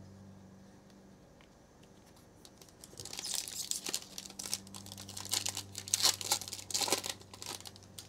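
A foil trading-card pack wrapper (Panini Prizm football) being torn open and crinkled by hand. The dense crackling starts about three seconds in and lasts about four seconds.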